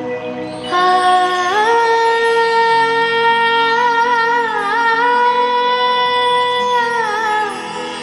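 Devotional singing with instrumental accompaniment: a single voice holds long, drawn-out notes, sliding up to a higher note about a second and a half in, then bending slowly before the phrase ends near the end.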